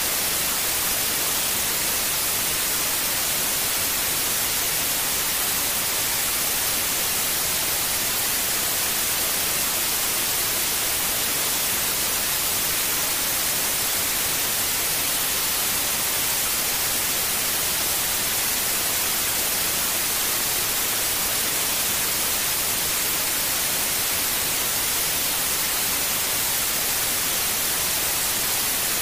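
Steady white noise: an even, unbroken hiss, strongest in the treble, played as a sleep aid for a newborn.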